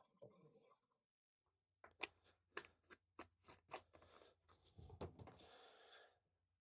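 Faint handling noises of small plastic items: a run of light clicks and taps, then a short soft rustle near the end.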